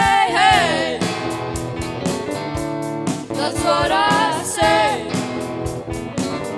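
Rock band playing live: sung vocal lines over electric guitars, electric piano and a drum kit with steady cymbal ticks.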